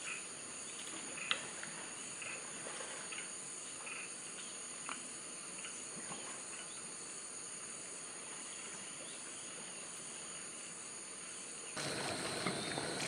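Steady rainforest insect chorus, a high-pitched drone with a few faint short chirps scattered through it. Near the end the background suddenly becomes louder and fuller, with a steady higher insect tone.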